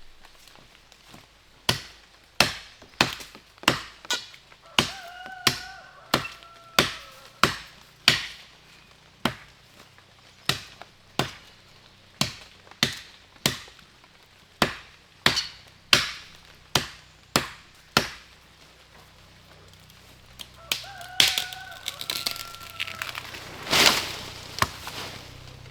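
Wood being chopped with a blade in steady, sharp strokes, about one and a half a second. The strokes pause briefly, then resume more unevenly near the end.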